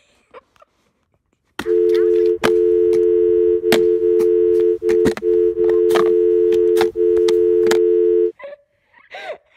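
A steady two-note telephone dial tone that comes in about a second and a half in and cuts off near the end, broken by a few brief dropouts, with scattered sharp clicks over it.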